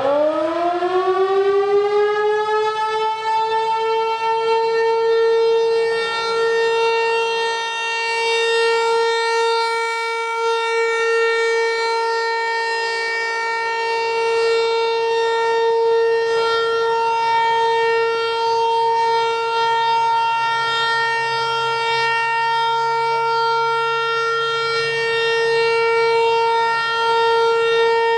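Federal Signal 508 outdoor warning siren winding up to full pitch over the first few seconds, then holding one steady, loud tone. Its loudness swells and fades slowly.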